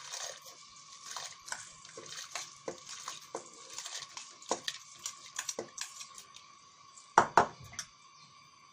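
Whole black masoor lentils rattling as they are scraped with a spoon off a steel plate into a steel pot of just-boiled water, with many small clicks and knocks of metal on metal. Two louder knocks come about seven seconds in.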